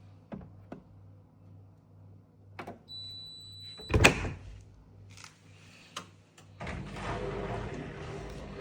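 Washing machine being worked: a few clicks, a single beep lasting about a second, then a loud door-like thud about four seconds in. After a few more clicks, a steady running noise starts near the end as the machine gets going.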